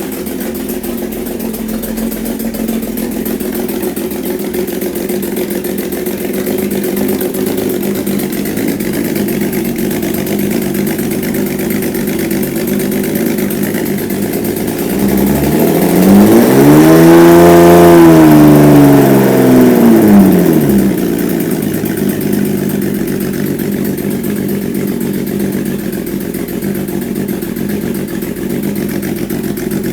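Kawasaki Z1300's six-cylinder engine idling just after its first start. About halfway through it is revved once, the pitch rising for two or three seconds and falling back to idle.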